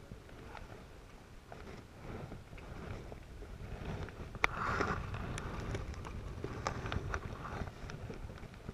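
Wind and water rushing past a small sailboat, with a run of sharp clicks, knocks and rattles from the rigging and lines from about halfway through, as a sheet is worked and the boom swings across.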